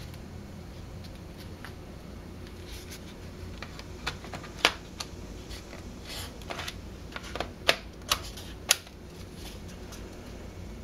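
Sharp plastic clicks and snaps of a Lenovo ThinkPad T430s battery being pressed into its bay on the laptop's underside and latched in place. The loudest click comes about halfway through, with a quick run of several more a few seconds later, over a faint steady hum.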